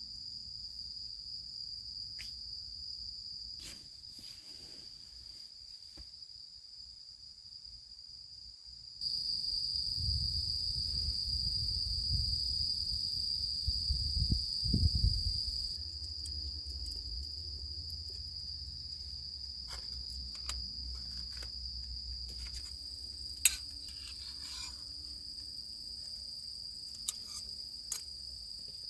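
Crickets chirring in one steady, high, continuous tone. A low rumble joins in for several seconds in the middle, and a few sharp clicks sound near the end.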